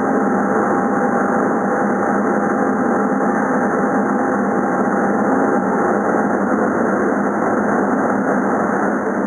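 Steady running noise of an Amada FO-3015 CO2 laser cutting machine, an even mechanical drone with a thin steady whine that fades out about seven seconds in.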